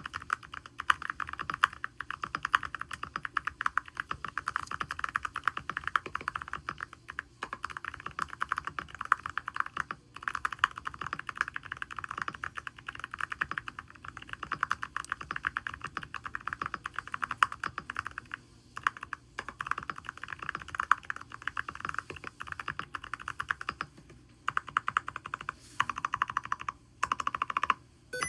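Typing on a DP104 mechanical keyboard with SPM x HMX tactile switches: fast, continuous keystrokes with a few brief pauses.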